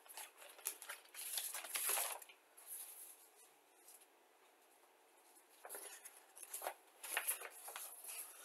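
Soft rustling and crinkling of a paper instruction sheet and plastic kit packaging being handled, in several short bouts with a quiet pause in the middle.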